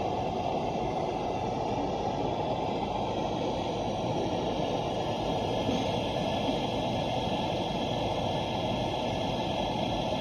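Soldering torch flame burning steadily, a constant rushing noise, as it heats a 2-inch copper fitting up to soldering temperature.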